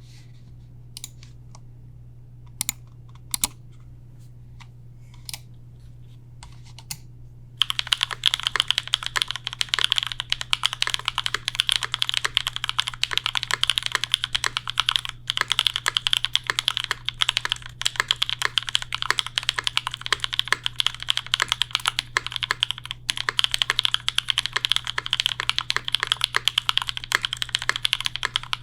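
Custom J-02 mechanical keyboard with lubed AEBoards Raeds switches, a carbon fiber plate and GMK keycaps: a handful of single keystrokes, then fast continuous typing from about eight seconds in. A steady low hum lies underneath.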